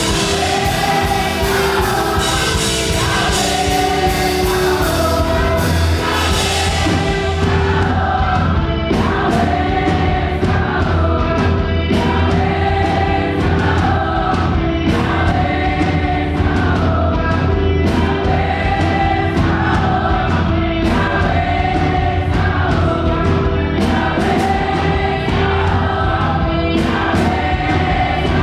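Live fast gospel worship music: a choir singing in repeated phrases over band accompaniment with a steady bass and regular drum hits.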